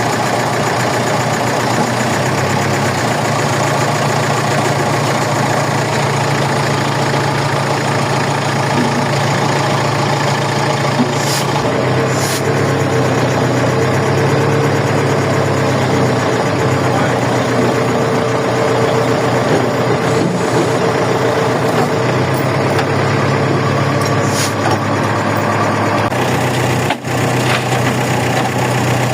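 A crane's engine running steadily, its note shifting slightly about twelve seconds in and again near the end. A thin steady whine sits over it through the middle.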